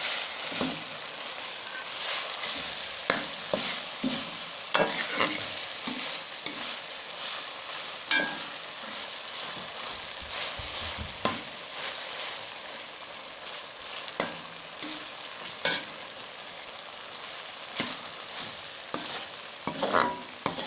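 Mutton liver masala sizzling in oil in a metal kadai, at the last frying stage when it is ready, while a metal spoon stirs it. The spoon scrapes and clicks against the pan every few seconds over the steady sizzle.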